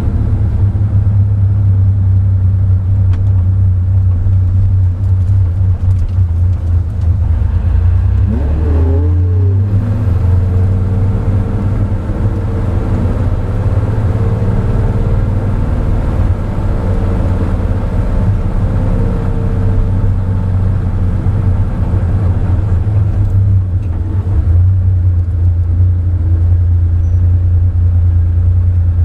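Porsche 911 SC's air-cooled flat-six running at low revs, heard inside the cabin as a steady low drone while the car rolls slowly. About eight to nine seconds in, the revs rise and fall briefly once.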